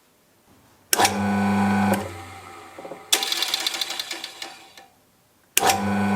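Restored KIRA 10mm bench drill press switched on about a second in. Its electric motor hums steadily for about a second, then is switched off and winds down. A rattling spell follows in the middle, and the motor is started again near the end.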